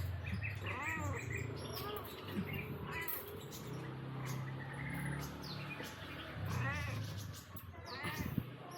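Cats meowing repeatedly, short meows rising and falling in pitch every second or two, over a steady low hum.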